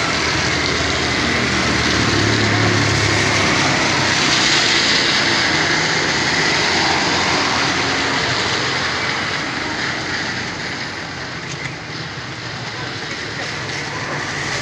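Traffic on a wet city street: a motorcycle engine passing about two to four seconds in, over a steady hiss that eases slightly near the end.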